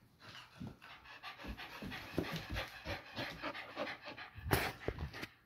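Small curly-coated dog panting quickly and rhythmically with its tongue out, with one brief louder sound near the end.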